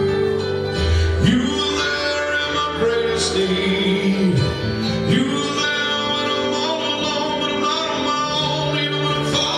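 A gospel song performed live: a man singing over instrumental accompaniment.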